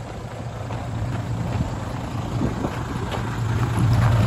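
Mitsubishi Fuso Fighter's 6D17 inline-six diesel engine idling steadily, growing louder near the end.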